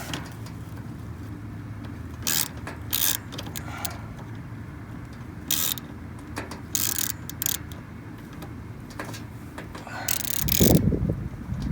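Ratchet wrench clicking in short, irregular spells as a bolt on the lawn sweeper's brush is tightened, with a louder low rumble near the end.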